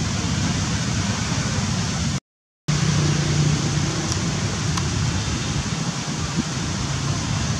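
Steady outdoor background noise, cut to silence for half a second about two seconds in, with a low hum for about a second just after.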